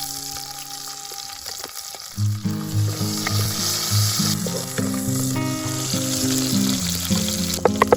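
Food sizzling as it fries in a pan, with background music over it; the music's notes come in more strongly about two seconds in.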